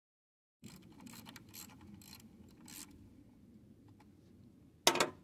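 A small hand wrench working the grease fitting on a mini excavator's track tensioner, loosened to bleed off track tension. A few short metal scrapes are followed near the end by a sharp metallic clack.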